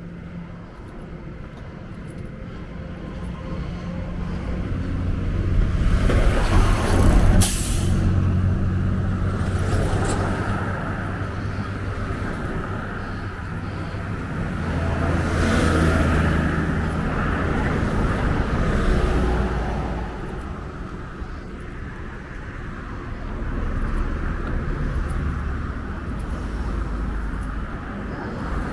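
Street traffic: motor vehicles pass one after another, their engines swelling and fading three times, loudest about six to eight seconds in. A brief high hiss cuts in about seven seconds in.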